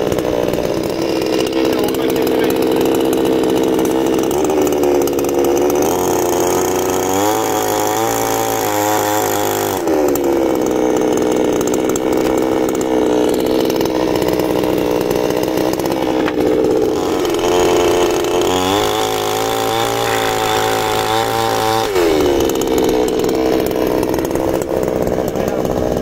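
A power saw runs continuously at a steady pitch. Its note wavers and shifts twice, about a third of the way in and again past two thirds, then settles back each time, as a blade working through wood would.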